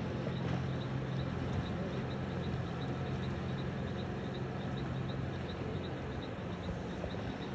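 An engine running steadily with a low, even hum, with a faint high chirp repeating about three times a second over it.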